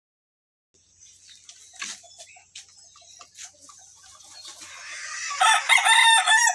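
Gamecock roosters clucking in short scattered calls, then one crows loudly, starting about five seconds in.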